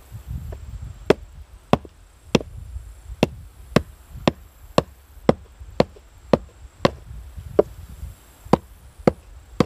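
Hand-held ground stone axe head chopping a green branch on a wooden board: a steady run of sharp strikes, about two a second, starting about a second in.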